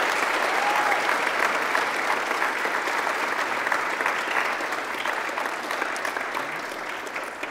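Crowd applauding, the clapping slowly dying down.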